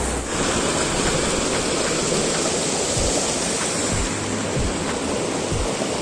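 Fast-flowing waterfall stream, its water rushing in a steady, even noise.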